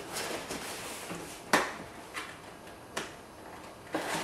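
Cardboard box flaps being folded shut and tucked in: soft rustling of cardboard with a few sharp taps, the sharpest about a second and a half in.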